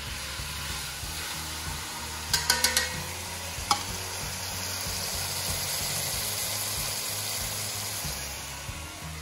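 A beef roast searing in a hot pot, sizzling steadily. A quick run of about four clicks comes about two and a half seconds in, and a single click about a second later.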